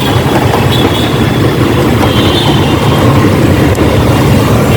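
Motorcycle engine running amid road traffic noise, a steady loud rumble.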